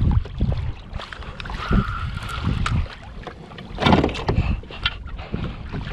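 Knocks and handling noises on a plastic pedal kayak, with water sloshing against the hull and wind on the microphone; a louder cluster of knocks comes about four seconds in.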